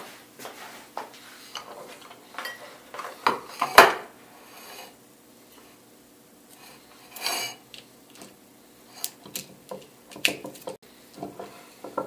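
Clinks, knocks and rattles of hard parts being handled on a plywood workbench: a metal clamp work light being moved and a wired electrical outlet being handled. The loudest knock comes about four seconds in, with a short rustle about seven seconds in.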